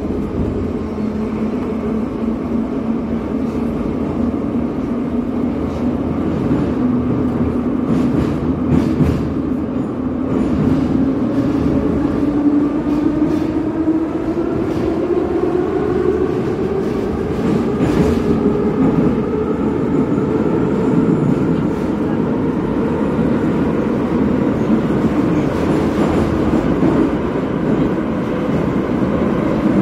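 Metro train heard from inside the car as it pulls out of a station: the traction motors' whine rises in pitch as the train accelerates over the first fifteen seconds or so, then holds steady over the wheel-and-rail rumble as it runs on through the tunnel, with a few short clicks along the way.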